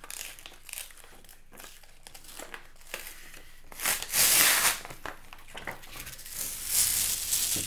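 Backing liner being peeled off a Post-it adhesive dry erase sheet: crinkling and rustling as the liner comes away, with louder stretches of peeling about four seconds in and near the end.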